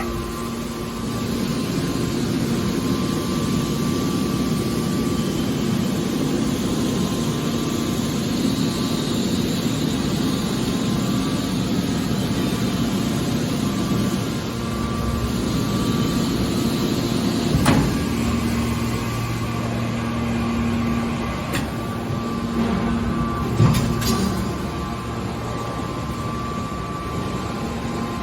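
Hydraulic scrap metal baler running: a steady hum from its hydraulic power unit, with two sharp knocks in the second half.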